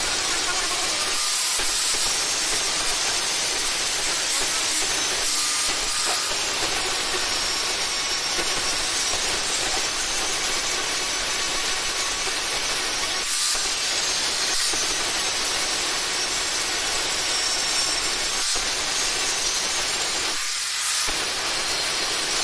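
Electric angle grinder with an abrasive disc grinding the welded joints of a steel frame: a loud, steady grinding hiss that eases briefly a few times as the disc shifts on the metal.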